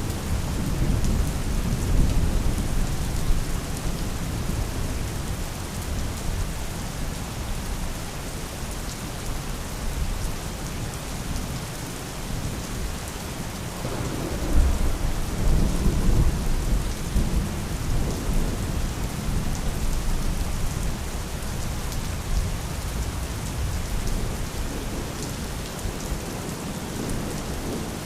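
Steady rain falling, with distant thunder rumbling twice: once in the first few seconds and again, louder, about halfway through.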